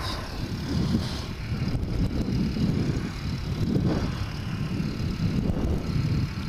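2003 Suzuki DR-Z125's small single-cylinder four-stroke engine running under way at road speed, with wind rumbling over the helmet-mounted microphone.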